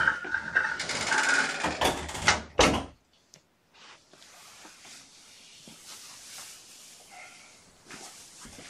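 Loud rustling and knocking close to the microphone for about three seconds, cutting off suddenly; after a moment of near silence only a faint hiss with a few light knocks remains.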